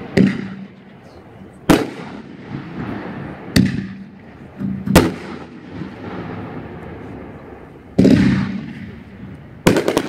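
A Winda "Shoot the Moon" 500-gram fireworks cake firing aerial shells: single sharp bangs every one to two seconds with a rumbling echo after each. A bigger, longer burst comes about eight seconds in, then a quick cluster of cracks near the end.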